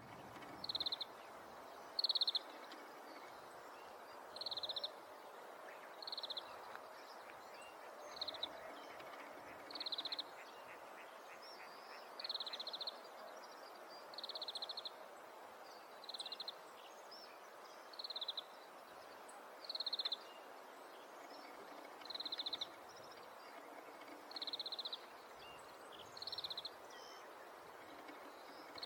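Oriental greenfinch repeating a short, buzzy, rapidly pulsed note roughly every one and a half to two seconds, over a steady background hiss.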